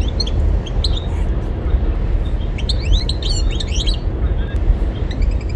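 European goldfinch chirping, then a quick burst of twittering song in the middle, over a steady low rumble.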